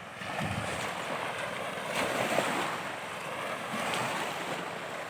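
Ocean waves crashing on the shore: a continuous wash of surf that swells and eases every second or two.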